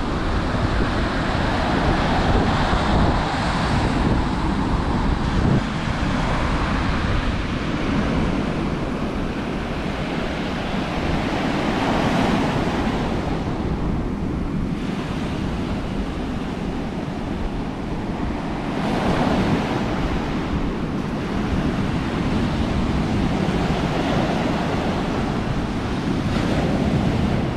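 Rough sea surf breaking and washing foam up a sandy beach, a steady roar that swells every several seconds as each wave comes in. Wind rumbles on the microphone underneath.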